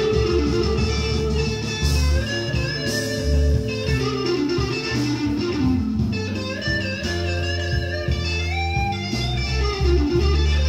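Recorded electric blues playing through a Yamaha M-80 power amplifier and loudspeakers: a lead electric guitar with bent notes over a steady bass line.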